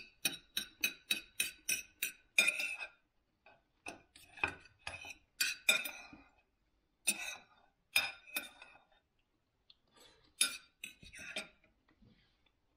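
Metal knife and fork clinking and scraping on a plate while cutting up food: a quick run of clinks, about four a second, for the first two seconds, then scattered clinks with pauses between them.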